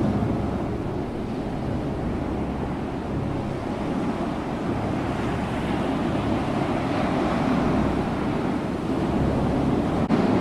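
Ocean surf: waves breaking and washing in a steady rush that swells and eases every few seconds.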